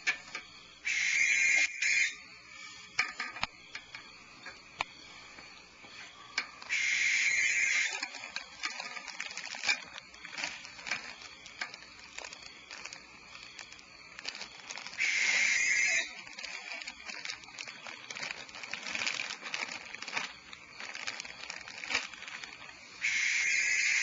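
Barn owls in a nest cavity giving long, harsh hissing calls, four of them about seven to eight seconds apart, each lasting a second or so. Faint scratching and shuffling clicks come between the calls.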